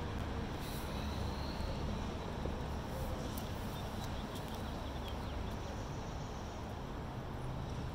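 Sneakers scuffing and tapping on asphalt during shadowboxing footwork, a few faint light steps over a steady low outdoor rumble.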